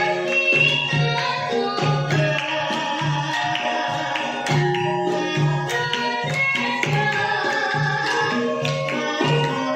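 Javanese traditional music: a hand drum beats a steady pattern of low strokes under held pitched instrument tones, with a girl's voice singing.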